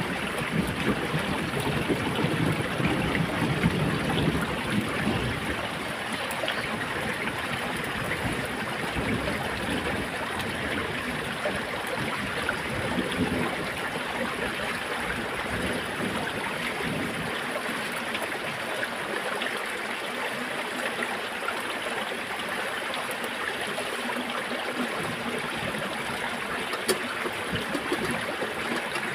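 A small, shallow stream running over rocks: a steady, continuous rush of water, with some extra low rumble in the first few seconds.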